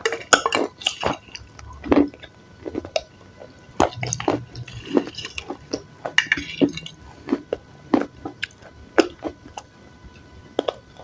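Close-miked chewing of salad: irregular wet, squishy crunches and mouth sounds, a few to several a second.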